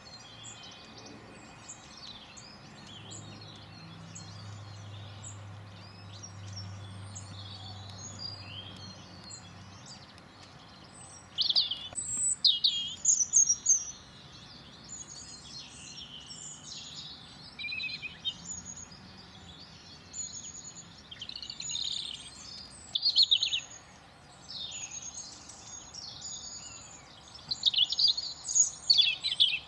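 Small garden birds chirping and calling in quick, high notes, louder in bursts from about a third of the way in. A low hum lies underneath during the first third.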